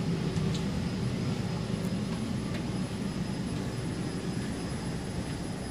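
Steady low rumble and hum of a parked Sukhoi Superjet 100's running systems, heard inside the cabin, with a faint high whine and a few faint ticks.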